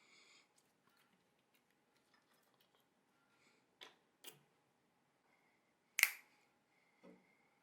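Slime being squeezed and stretched by hand, giving a few sharp pops and clicks as air pockets burst, the loudest about six seconds in, with faint small ticks between.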